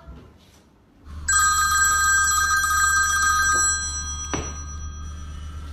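Mobile phone ringing: a steady electronic ring with several held tones over a low hum, starting about a second in and fading near the end, with a sharp click about four seconds in.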